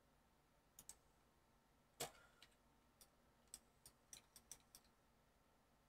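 Faint clicks of a computer keyboard and mouse, about a dozen in all: a pair just under a second in, the loudest about two seconds in, then a quick run of clicks between three and five seconds.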